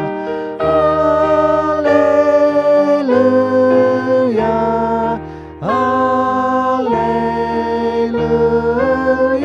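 Voices singing a slow hymn in harmony, holding long 'alleluia' notes, with a brief break about five seconds in before the next 'alleluia' phrase.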